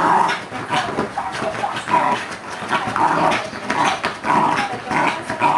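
Fox terrier scratching and digging rapidly at a leather sofa, paws rasping on the leather, with short excited vocal sounds from the dog coming every second or so.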